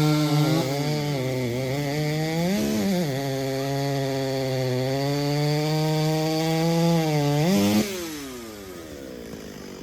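A 90cc-class two-stroke racing chainsaw cutting through a log at full throttle. Its pitch sags and holds low under load, picks up briefly about a third of the way in, then rises and winds down as the throttle is released near the end.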